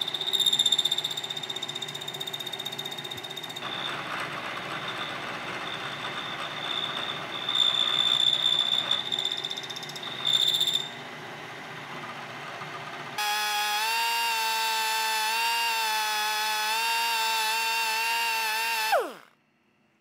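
An end mill in a vertical milling machine cutting quarter-inch steel plate: a steady grinding cut with a high-pitched squeal. About 13 seconds in this gives way to a steady machine whine with a clear pitch, which drops sharply in pitch and cuts off just before the end.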